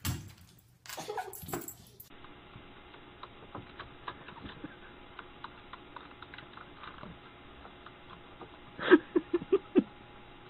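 Computer keyboard keys clicking under typing, after a thump and a few scuffles at the start. Near the end, a quick run of about five loud short sounds in under a second.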